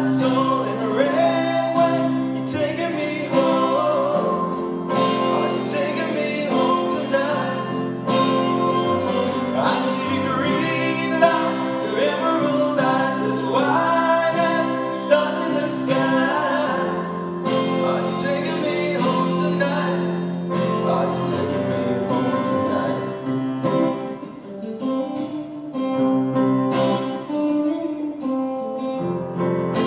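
A live song: a man singing with guitar and keyboard accompaniment.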